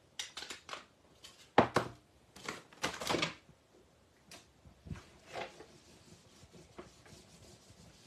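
Handling noises on a craft table: a string of light clicks and knocks as things are picked up and set down, a brief rustle of paper, then softer rubbing of a paper tissue over a plastic craft mat.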